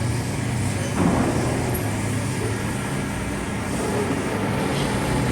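A machine running with a steady low drone, with a single dull knock about a second in.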